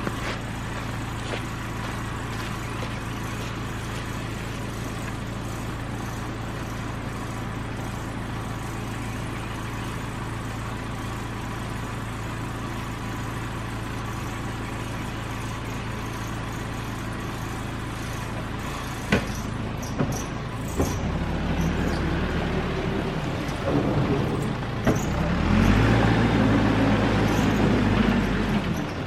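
Caterpillar backhoe's diesel engine running steadily. About two-thirds of the way in it starts revving up and down under hydraulic load as the machine digs, with a few sharp knocks.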